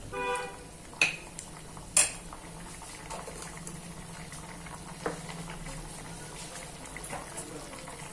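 A metal spoon stirring a pot of boiling spinach gravy, with two sharp clinks against the pot about one and two seconds in and a softer one about five seconds in. Faint bubbling continues over a steady low hum.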